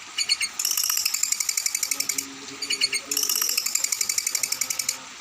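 Songbird singing a fast, high-pitched rattling trill of about a dozen notes a second, in two long runs split by a short stutter of scattered notes about two seconds in.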